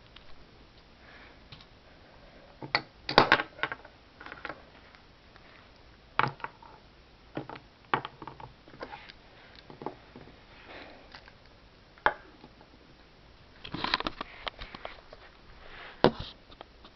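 Scattered clicks, taps and brief rustles from small plastic toy figures being handled and set down on a hard surface, with a louder cluster about three seconds in and another near the end.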